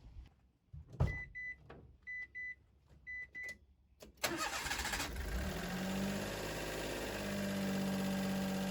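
A knock, then three pairs of short high beeps, then a Mitsubishi Minicab Van's three-cylinder engine cranks briefly, starts about four seconds in and settles into a steady idle.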